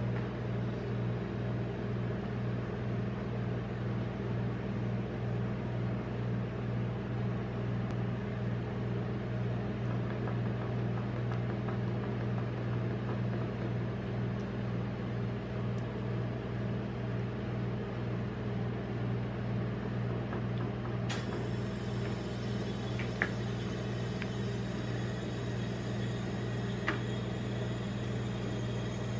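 Steady low hum of a rolled-ice-cream machine's refrigeration compressor running under the frozen cold plate, with a couple of faint light taps a little after two-thirds of the way in.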